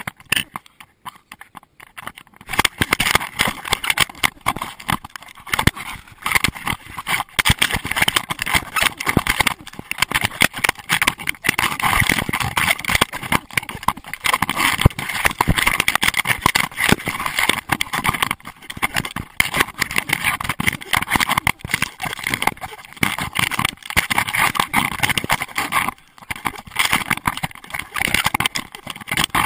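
Dense, irregular knocking and rattling from a loosely secured GoPro Hero2 camera strapped to a running Doberman, jolted with each stride, mixed with the dog's footfalls. It eases off briefly about a second in.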